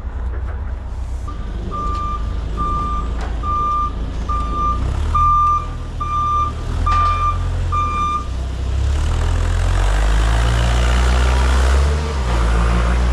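Forklift back-up alarm beeping steadily, about three beeps every two seconds, over a running engine. The beeping stops about eight seconds in and the engine grows louder as the forklift drives forward.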